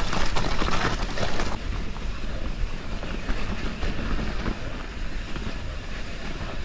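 Mountain bike rattling and clattering at speed down a dirt trail, with tyre noise and a steady wind rumble on the microphone. The knocks and clatter are thickest in the first second and a half, then settle into a steadier rush.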